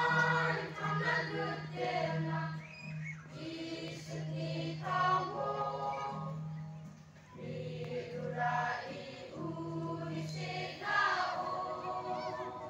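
Church choir, mostly women's voices, singing a gospel song in phrases with short breaks between them, over a steady low hum.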